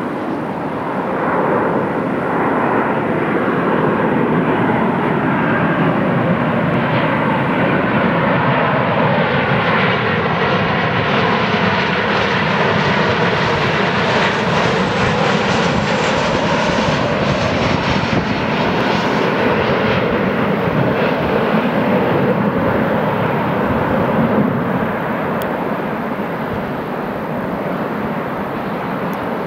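Boeing 737-800's CFM56-7B turbofan engines on landing approach: jet noise swells as the airliner closes in, is loudest and fullest as it passes broadside, then eases off as it flies on to touch down on the runway. Tones in the rumble slide in pitch as it goes by.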